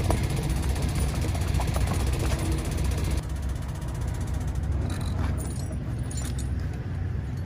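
Semi truck's diesel engine running with a steady low rumble. A hiss over it drops away about three seconds in, and a few light clicks follow.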